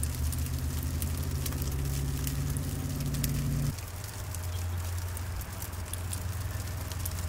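Steady low hum of a nearby vehicle engine running, with fine irregular crackling ticks throughout. The hum's upper tones drop out about four seconds in, leaving a lower, steady drone.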